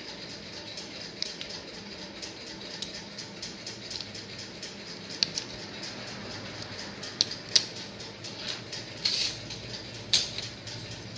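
Small plastic clicks and scrapes from a Nissan Micra keyless remote fob being opened and its coin-cell battery taken out, with a few sharper clicks and a short scrape.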